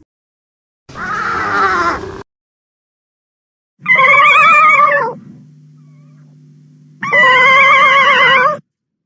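Godzilla roar sound effect played several times: a rasping call about a second in, then two long, loud, wavering high-pitched wails, with a low steady hum between the last two.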